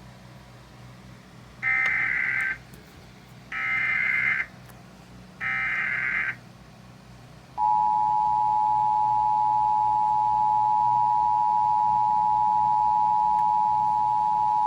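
Emergency Alert System activation: three short bursts of SAME header data tones, high and buzzy, about a second apart. Then, about halfway through, the steady two-tone EAS attention signal starts and holds. The alert heads a National Weather Service severe thunderstorm watch.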